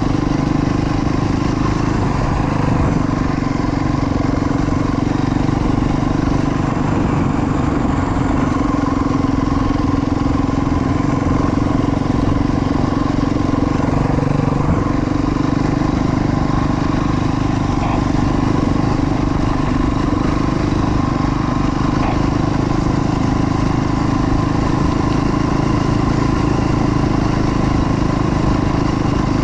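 Dirt bike engine heard on board, running at a steady, even speed along a gravel road.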